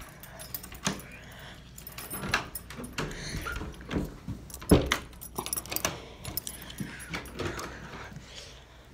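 A bunch of keys jangling and rattling in a door lock, with a string of clicks and knocks as the lock and door are worked; the loudest knock comes about halfway through.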